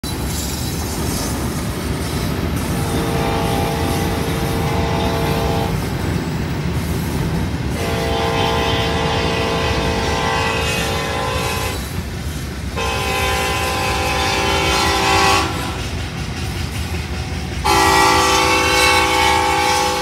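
Union Pacific SD70ACE 8392's Nathan K5LLA five-chime air horn sounding four long blasts, the last still going at the end, over a steady low rumble. Heard from inside a car pacing the train.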